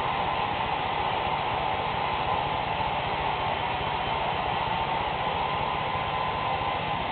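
Handheld electric hair dryer blowing continuously: a steady rush of air with a constant motor whine.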